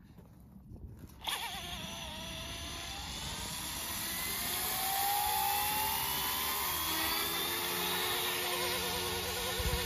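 YuXiang F06 (Eachine E135) RC helicopter's electric motors starting about a second in and spooling up the rotors: a whine that rises steadily in pitch and grows louder over several seconds, then settles into a steady high buzz.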